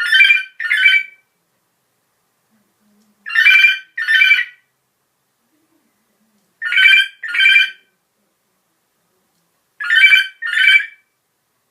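A telephone-style double ring, brring-brring, repeated four times about three seconds apart.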